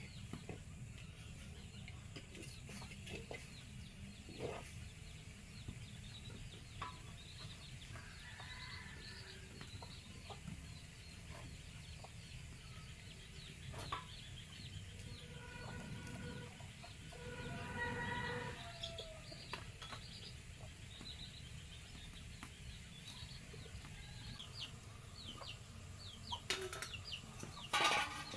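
Chickens clucking, with a few calls about a third of the way in and a longer run of calls about two-thirds through. Scattered clicks and scrapes of a wooden spatula in a cooking pot, loudest near the end.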